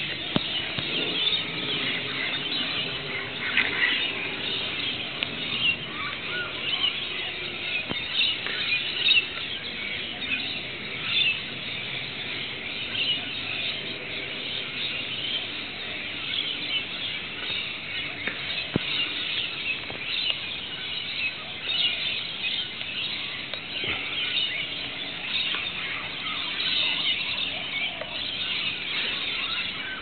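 Many rainbow lorikeets and other birds calling at once: a dense, unbroken chatter of high, shrill calls.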